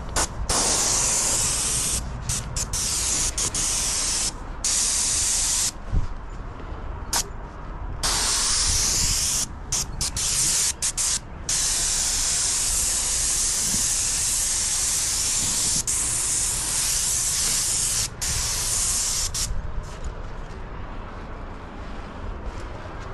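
Airless paint sprayer gun spraying paint onto a building wall, a loud high hiss that starts and stops with the trigger: many short breaks in the first half, then a long steady pass, stopping a few seconds before the end.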